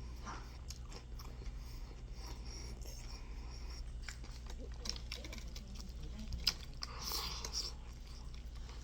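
A person chewing and biting into crunchy fried chicken: scattered small crunches and clicks over a steady low hum, with a sharp click about six and a half seconds in and a brief louder noise just after.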